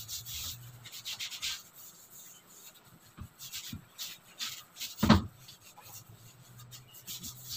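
Scrubbing sponge rubbing back and forth on the greasy underside of a kitchen range hood coated with cleaner: repeated scratchy strokes, with one louder knock about five seconds in.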